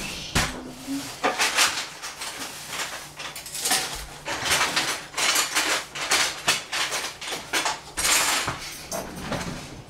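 Kitchen rummaging: irregular rustles and clatters of packaging and utensils being handled, with no steady rhythm.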